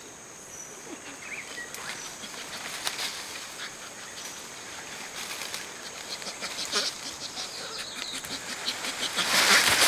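Dry leaves and twigs rustling and crackling as young bonobos climb and move about in the forest, with a louder burst of rustling near the end. A steady high insect drone runs underneath.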